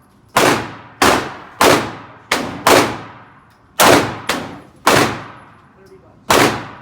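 Glock 17 Gen4 9mm pistol firing a string of about ten shots, roughly one every half second to second, each crack trailing off in a short echo.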